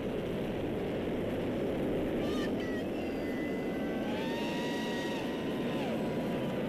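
Falcon Heavy's 27 Merlin rocket engines firing during ascent: a steady, dense rumble with no breaks. A few faint thin whistling tones sound in the middle.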